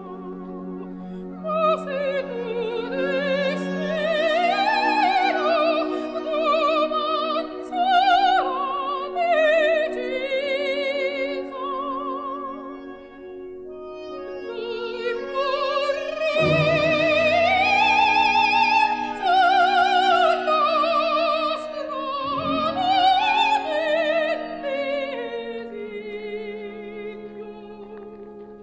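Operatic singing with wide vibrato, sustained notes rising and falling, over orchestral accompaniment; the music fades down near the end.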